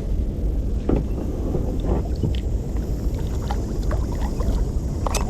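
Wind rumbling on the microphone, with scattered light knocks and clinks.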